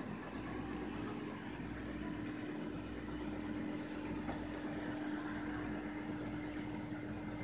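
A steady mechanical hum with one constant tone over a low rumble, with a couple of faint ticks.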